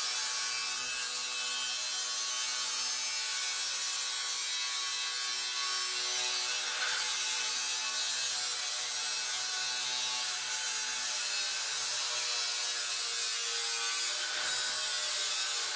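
Angle grinder with a cutting disc running steadily at full speed, slicing through the rusted sheet steel of a tailgate: a continuous harsh cutting noise over the motor's steady whine.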